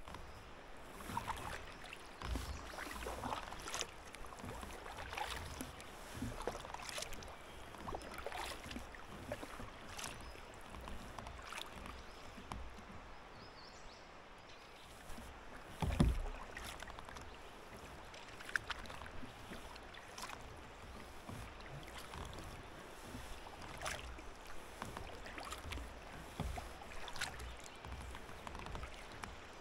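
Double-bladed kayak paddle strokes dipping into and pulling through calm water, alternating sides with a splash and drip about every second. About halfway through comes a single louder, deeper thump.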